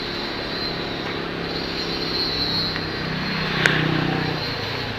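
Honda CG 150 Sport's single-cylinder four-stroke engine running with its air filter removed, swelling briefly about three and a half seconds in, with one sharp click at the peak.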